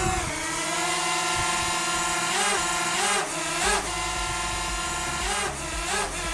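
DJI Mavic Mini drone's propellers running with a steady whine, the pitch briefly wavering several times as the motors adjust speed.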